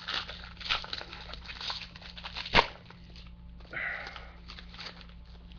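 Baseball trading cards and stickers being handled and shuffled by hand: soft rustles and slides, with one sharp click about two and a half seconds in.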